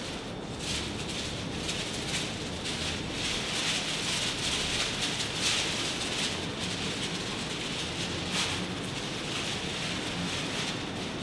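Paper and plastic sheets rustling and crinkling as they are handled, a continuous flickering rustle that swells a little in the middle.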